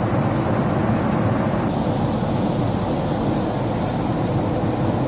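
Steady cabin noise of a Boeing 767-400ER airliner at cruise: the even, low rush of airflow and engines heard from a business-class seat.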